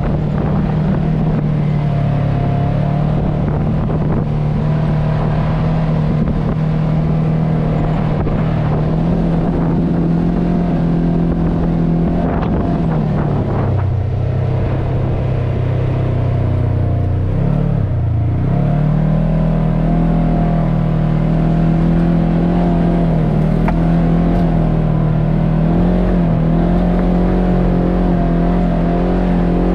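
Polaris RZR S 1000 side-by-side's engine running steadily under throttle, easing off about halfway through and again briefly a few seconds later, then picking back up to a steady pitch.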